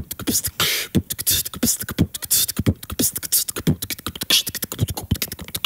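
A person beatboxing: fast vocal percussion of low kick-drum thumps, clicks and hissing snare sounds in a steady rhythm.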